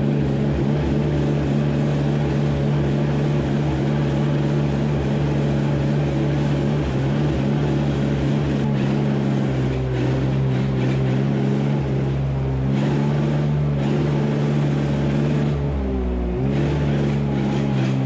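Diesel engines of a tractor and a wheel loader running steadily as the loader tips silage into a feed mixer wagon. The engine note dips briefly and recovers near the end.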